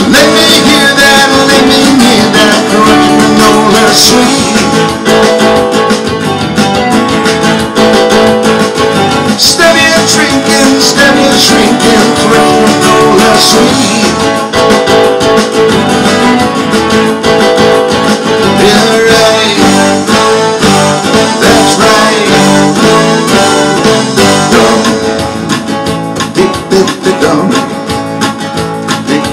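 Acoustic guitar strummed steadily through a stretch of a song, with some singing into a microphone. The playing gets a little quieter and more uneven near the end.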